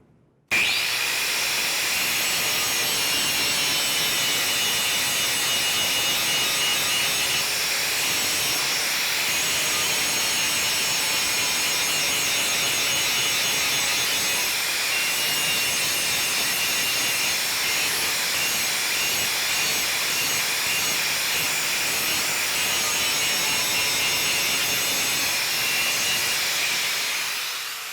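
Handheld grinder switched on about half a second in, grinding the cutting-edge bevel of a steel lawnmower blade clamped in a vise: a steady, loud, high-pitched whine with a grinding hiss, which dies away near the end as the grinder is switched off.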